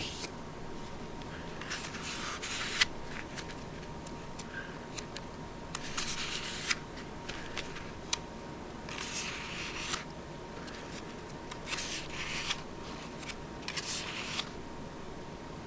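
Thick cardstock pages of a scrapbooking daybook being turned by hand: intermittent paper rustles and flips, with a few sharp clicks.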